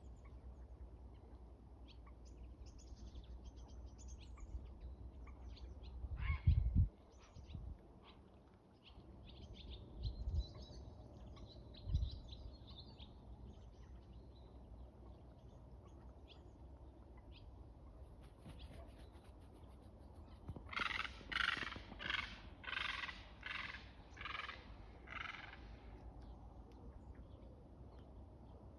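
Heron giving a run of about seven harsh, creaking calls, roughly one and a half a second, about two-thirds of the way through. Earlier there is faint chirping from small birds and a few dull low thumps.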